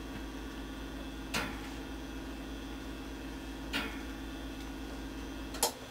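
Steady hum of a running variable-speed HVAC air handler and blower, with three short sharp clicks a couple of seconds apart. Near the end the hum cuts off at the last click as the system shuts down.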